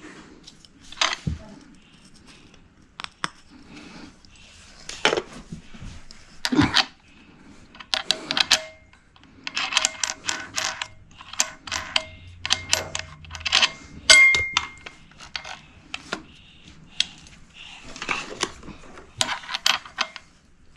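Irregular clinking and clattering of small hard objects being handled, a run of sharp knocks with one short metallic ring about 14 seconds in.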